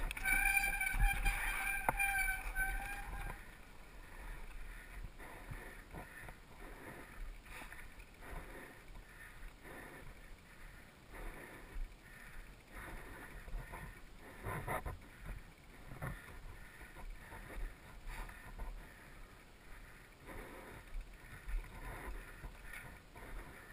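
Mountain bike ridden downhill on a dirt trail: tyres rolling over wooden slats and dirt, with the bike rattling and knocking over bumps. A high steady whine from the bike sounds for the first three seconds, then stops.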